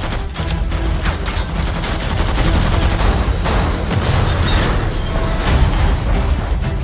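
Film sound effects of sustained rapid gunfire from a vehicle-mounted machine gun, with explosions.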